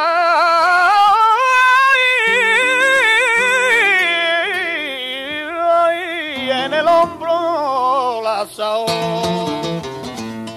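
Flamenco cante: a male singer holds a long, wavering melisma without words over flamenco guitar. The voice ends about six and a half seconds in, and the guitar carries on alone with strums and runs.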